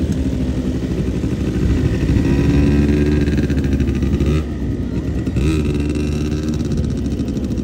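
Small ATV (quad bike) engines running. One revs up, rising in pitch; it drops off abruptly about four and a half seconds in, then picks up again a second later.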